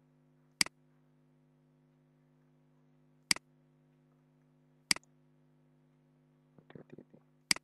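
Computer mouse clicks: four sharp single clicks, one to three seconds apart, with a few fainter ticks shortly before the last one, over a faint steady hum.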